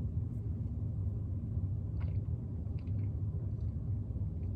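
Steady low room hum, with a few faint clicks from a plastic soda bottle being handled and lifted for a sip near the end.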